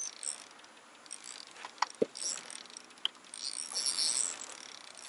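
Fishing reel being cranked, a faint high clicking whir in several short spells, with a few sharp single clicks between them.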